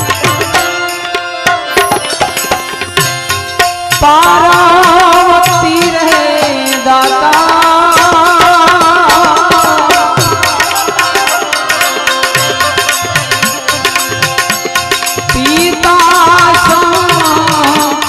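Bhajan music: harmonium carrying an ornamented melody over a hand-drum beat. The melody comes in louder about four seconds in.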